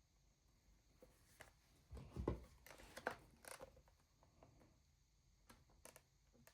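Faint handling noise: scattered light clicks and rustles, with a soft thump and a short flurry of clatter about two seconds in.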